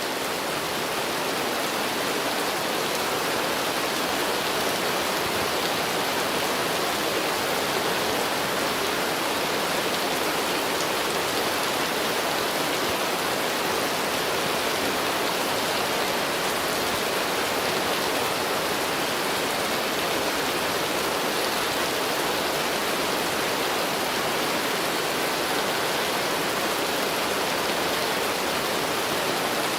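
Steady rainfall, an even hiss that holds at one level throughout.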